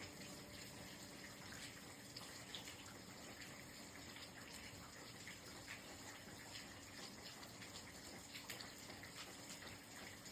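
Faint steady rain: an even hiss with scattered small ticks of drops.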